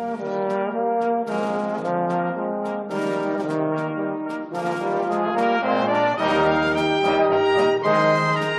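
Closing theme music: slow, sustained chords with no speech, and a low bass line coming in a little past halfway.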